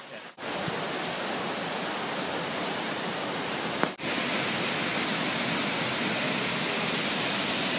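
Steady rushing of a tall waterfall. The sound breaks off abruptly twice, just before half a second in and about four seconds in, and comes back a little louder after the second break.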